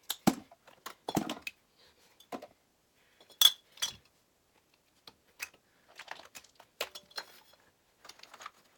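Empty makeup and skincare containers being handled and set down one after another while they are sorted: scattered clicks, clunks and light rattles, with one sharp clink about three and a half seconds in.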